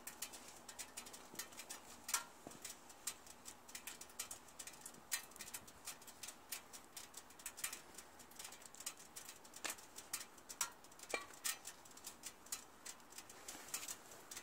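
Light, irregular clicking and clinking from the metal hooks and ratchet buckles of ratchet tie-down straps being handled, a few clicks a second.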